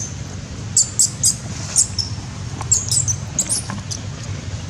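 Newborn long-tailed macaque squeaking: about ten short, very high-pitched squeaks in quick, irregular succession, over a steady low hum.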